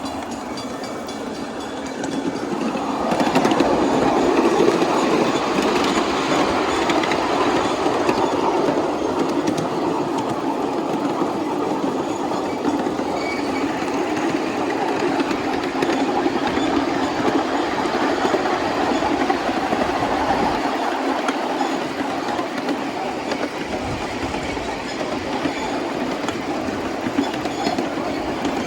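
Miniature 7¼-inch gauge live steam train running along its track, steel wheels rolling on the rails in a steady rumble that grows louder about three seconds in and then holds.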